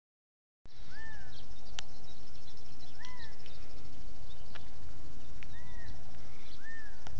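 An animal giving short rising-and-falling calls, four in all, spaced one to two seconds apart, over a steady low rumble that starts abruptly under a second in, with a few faint clicks.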